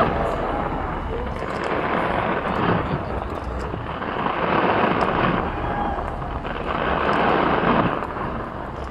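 New Year fireworks bursting in a continuous barrage, a dense rumble that swells and eases every couple of seconds, with faint crackles on top.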